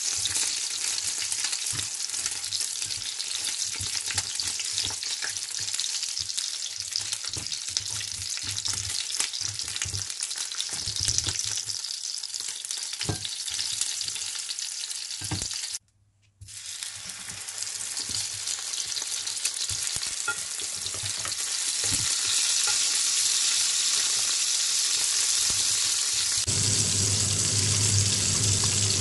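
Egg-and-cornstarch-coated king crab leg pieces frying in hot oil in a pan: a steady sizzle with small clicks as the pieces are turned. The sound cuts out for a moment about halfway through, then the sizzle returns, and a low hum joins near the end.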